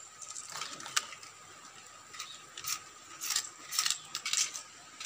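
Plastic Beyblade parts and packaging being handled: scattered small clicks and brief crinkles, several in quick succession in the second half.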